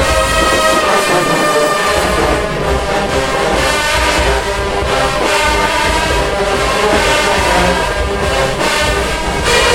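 HBCU-style marching band playing: brass (trombones and horns) holding loud sustained chords over a steady drum beat.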